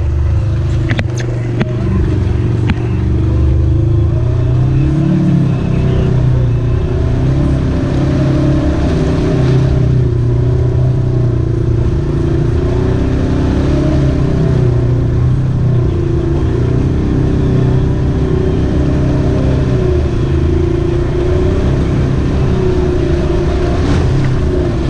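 Polaris RZR side-by-side's engine running steadily under load as the machine wades through a flooded marsh channel, its pitch wavering a little. A few light clicks come in the first couple of seconds.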